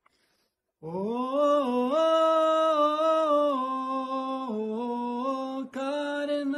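A man's voice singing a wordless tune in long held notes that step up and down in pitch, starting about a second in, with a brief break near the end.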